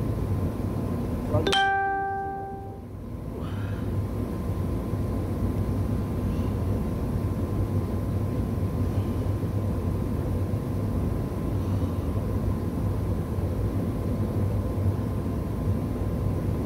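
Steady low background rumble with a faint steady hum, and a single short pitched ding about a second and a half in that fades over about a second.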